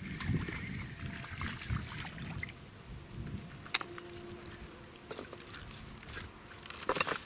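Spinning reel cranked in quick, even turns for the first couple of seconds as a small fish is reeled in. Then come a few sharp clicks and a louder rustle near the end as the fish and line are handled.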